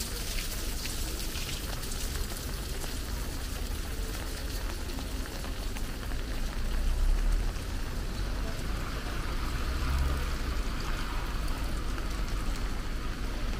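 Heavy rain falling steadily on a wet street and pavement, a continuous hiss with fine pattering. A low rumble swells twice, about halfway through and again a few seconds later.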